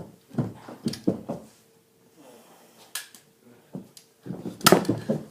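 Irregular knocks, clicks and clatter of objects being handled, the loudest knock about three-quarters of the way through, over a faint steady hum.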